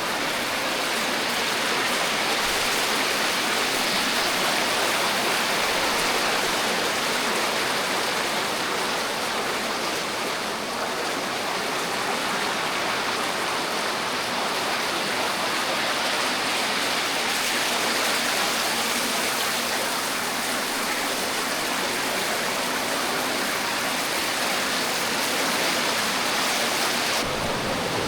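Waterfall with water pouring over rock and splashing into the pool below, a steady, even rush.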